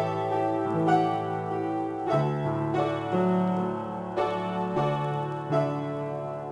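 Solo piano improvisation: chords struck about once a second over held low bass notes, each left to ring into the next.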